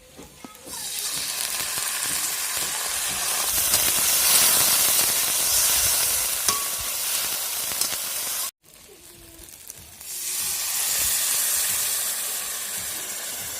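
Food frying in hot fat, a loud even sizzle that swells in about a second in, breaks off abruptly past the middle, and swells up again a little later.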